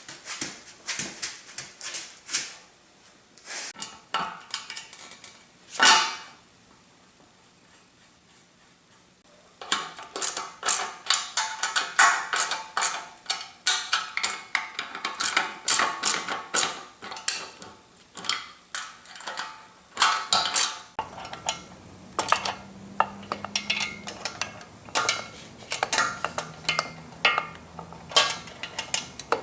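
Metal clinking and clattering. There are a few sharp knocks at first, then a quiet spell, and from about a third of the way in a long run of quick, light metal clicks and clinks. A faint low hum joins in past the middle.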